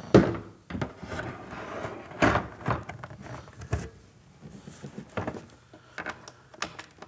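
Plastic outer fairing of a Harley-Davidson Road Glide being fitted back onto the bike by hand: a series of knocks and scrapes as the shell is pushed into place against the inner fairing, the loudest knock just at the start.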